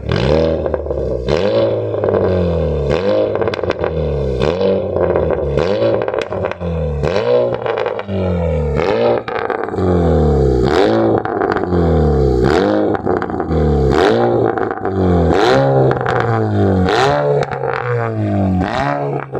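A Honda City engine free-revved in short blips, about one every second and a half, each rev rising and falling. Sharp pops and crackles follow each rev as it drops off. They come from a custom exhaust with the secondary catalytic converter removed and 2.0 piping.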